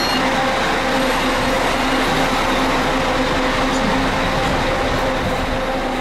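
Steady mechanical drone: a low hum with its overtones over an even rush of noise, unchanging throughout.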